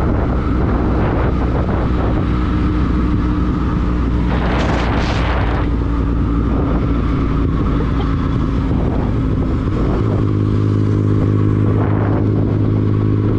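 Motorcycle engine running under way, its exhaust rumbling steadily. The engine note shifts to a new pitch about ten seconds in, and there is a brief rush of noise about five seconds in.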